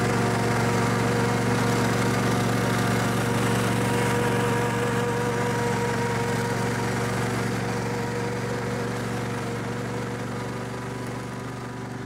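Snapper riding lawn mower's engine running steadily as the mower is driven along, a steady drone that gradually fades over the last several seconds. It is driving on a newly replaced hydrostatic transaxle.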